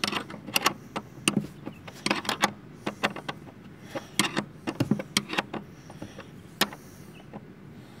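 Ratcheting wrench clicking in short irregular runs as it is worked back and forth, loosening a tight car seat-rail bolt.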